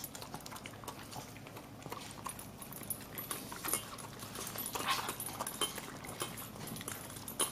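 Dogs eating ground beef and bacon from bowls: irregular wet chewing, smacking and licking clicks, with a louder flurry about five seconds in.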